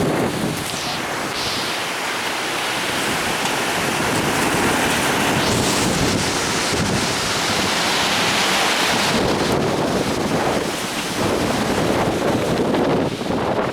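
Heavy thunderstorm wind gusting hard and buffeting the microphone as a steady rushing noise. It swells a few seconds in and then rises and falls with the gusts.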